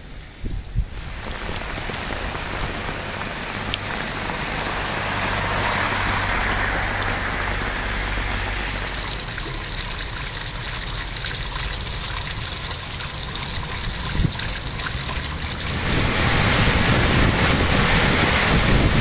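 Rain falling on a wet street, then rainwater gushing from a drainpipe and splashing onto tiled paving. Near the end the rush of rainwater runoff pouring into a storm-drain grate takes over, louder and brighter.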